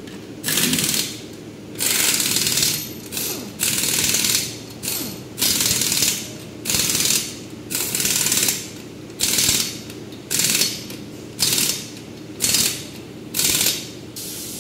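Pneumatic impact wrench tightening a wheel's lug nuts: about a dozen short bursts of rapid hammering, each under a second, with brief pauses between them as it moves from nut to nut.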